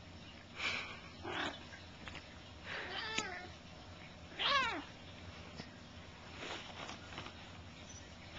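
Adult cat meowing in short cries while play-wrestling a Bengal kitten: a run of calls in the first half, the loudest a falling cry near the middle, then a few fainter ones.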